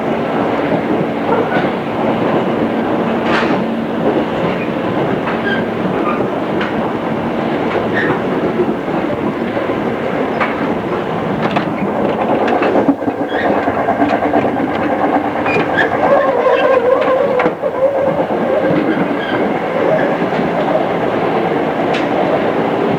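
JR East 211 series electric train running, heard from inside the passenger car: a steady rumble and hum from the traction motors and running gear, with wheels clicking over rail joints now and then.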